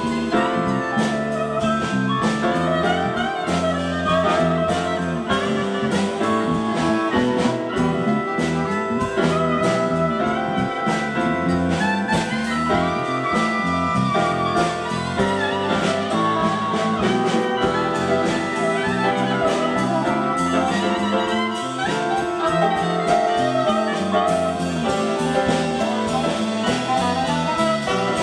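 Live jazz band playing with drum kit, bass, piano and horns (trombone and saxophone), with a steady beat.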